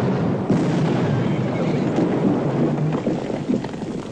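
A cannon firing about half a second in, its blast drawn out into a long, noisy rumble that fades over the next few seconds.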